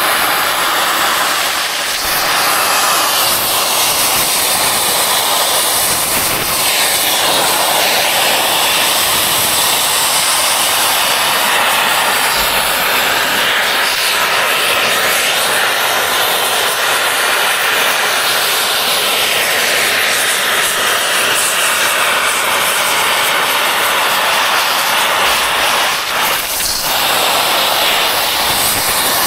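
Oxy-fuel torch burning with a loud, steady hiss while bearings are torched off a dozer final-drive part.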